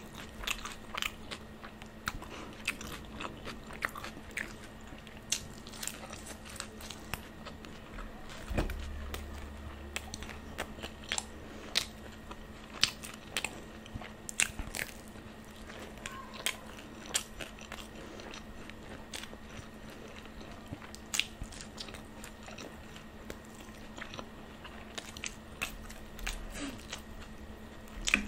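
Close-up eating: a person biting into and chewing fried momos, with many sharp, irregular crisp crunches and chewing between bites.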